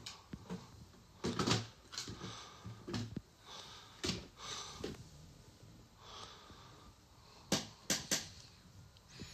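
Plastic LEGO parts knocking and clicking irregularly as the top of a large LEGO question-mark block is lifted off and its inner sections handled, with brief plastic rubbing between the knocks and a few sharp knocks near the end.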